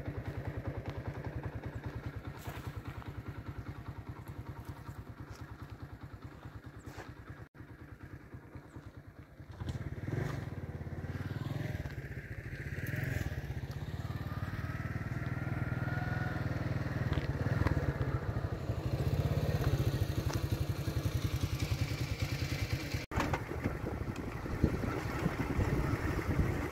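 Small motorcycle engine running with a fast, even beat, growing louder about ten seconds in as it gets under way along a dirt road.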